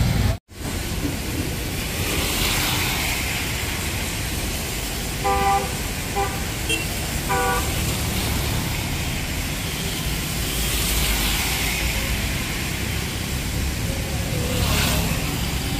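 Traffic on a wet road in heavy rain: a steady hiss of rain and tyres, swelling as vehicles pass. A car horn gives a few short toots in the middle.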